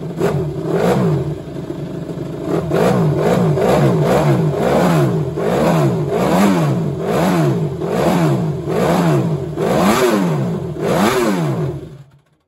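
Ducati Desmosedici MotoGP race bike's V4 engine being warmed up on its stand, the throttle blipped about once a second so the engine note rises and falls in repeated revs. The sound stops abruptly near the end.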